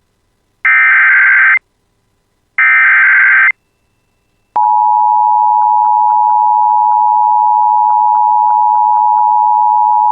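Emergency Alert System header: the second and third bursts of the SAME digital data tones, each a harsh warbling screech about a second long, encoding the warning. After a second of silence the steady attention tone near 1 kHz starts about four and a half seconds in and holds.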